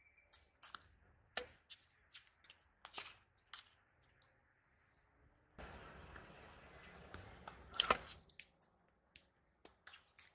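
Tennis rally on an outdoor hard court: sharp pops of racket strings striking the ball and the ball bouncing on the court, coming every second or so. About halfway through, a rushing noise rises for a couple of seconds and cuts off, and the loudest hit comes near its end.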